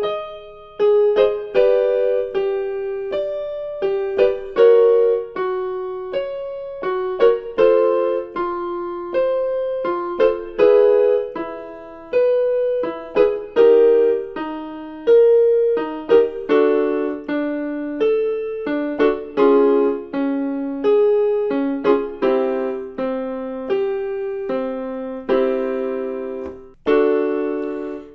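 Piano playing short struck note-and-chord patterns one after another, each sounding and then decaying: the accompaniment that gives the pattern for a belting warm-up exercise. The notes sit in the singer's middle range and drift lower toward the end.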